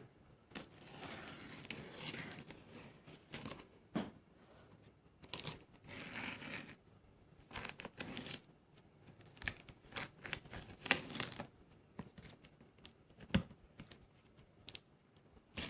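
Packaging of a boxed subwoofer being opened by hand: bursts of ripping and crinkling, like tape and wrapping being torn, with sharp clicks and knocks from handling the cardboard carton in between.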